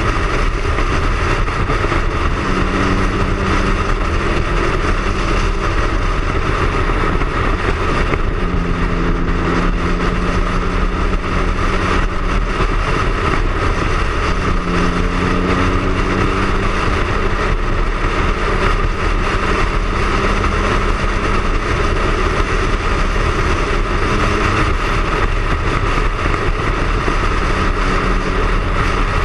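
Wind rushing over the camera microphone on a Triumph Speed Triple at cruising speed, with the three-cylinder engine's steady note underneath, holding an even pitch in stretches of a few seconds.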